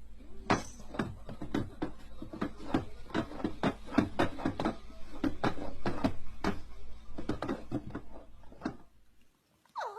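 Irregular run of sharp clicks and knocks, several a second, stopping about nine seconds in.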